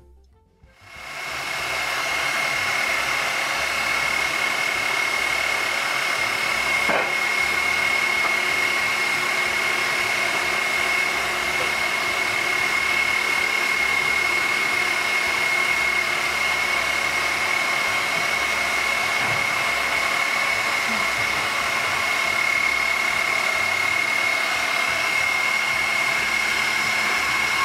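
Electric stand mixer running at high speed, whipping egg whites in a steel bowl for Italian meringue: a loud, steady motor hum with a constant high whine. It comes up to speed over about a second near the start.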